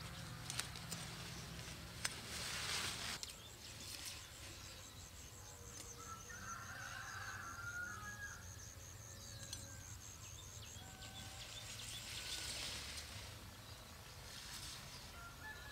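Quiet farmyard ambience with faint fowl calls. A rustling noise and a single click come in the first three seconds, then a fast, even high ticking runs for several seconds.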